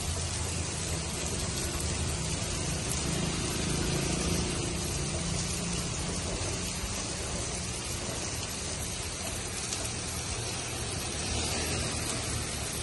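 Heavy monsoon rain pouring steadily onto a road and the surfaces around it, a dense even hiss, with a low rumble underneath that swells a few seconds in and then eases.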